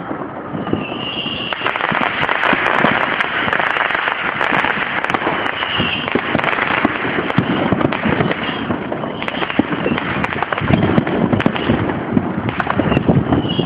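Many fireworks and firecrackers going off at once, a dense, continuous crackle of pops and bangs.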